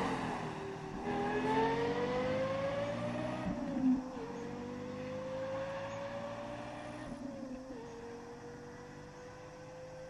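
Lexus LFA's 4.8-litre V10 accelerating away after a fly-by, its note climbing steadily and dropping sharply twice, about four and eight seconds in, as it shifts up, fading gradually.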